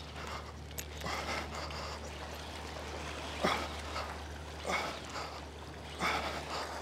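Small sea waves lapping and washing against shoreline rocks in several separate swishes, over a steady low hum.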